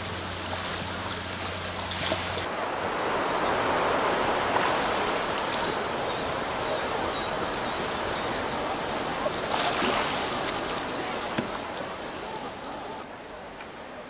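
Sea waves washing ashore: a steady rushing hiss that swells about two seconds in and eases near the end, with a few faint high chirps in the middle. Background music fades out just before the waves swell.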